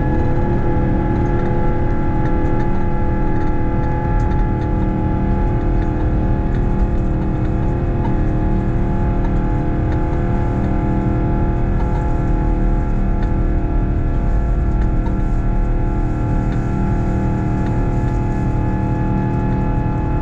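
Jet airliner noise, a steady engine drone with several held tones over a low rumble.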